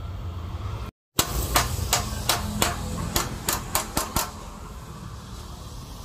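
About ten sharp knocks, irregularly spaced, over a steady low hum, after a brief drop to silence about a second in.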